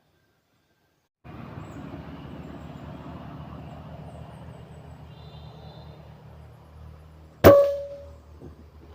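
A steady low background noise, then a single PCP air rifle shot about seven and a half seconds in: one sharp crack with a brief ringing tone after it.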